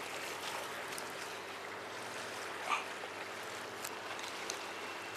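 Sea water washing and lapping against breakwater rocks, a steady low hiss with a faint short sound about halfway through.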